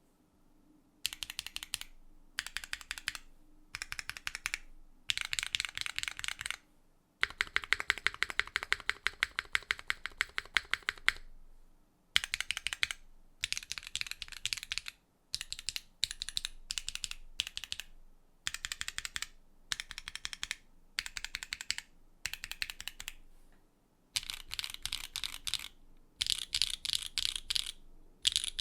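Typing on a Neo65 mechanical keyboard with an aluminium plate and Kailh Xuan switches. The key strokes come in bursts of a second or two with short pauses between them. About seven seconds in there is a fast, even run of strokes that lasts about four seconds.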